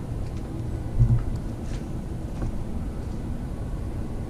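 Low, steady rumbling on the handheld camera's microphone as it is carried, with a soft thump about a second in and a few faint ticks.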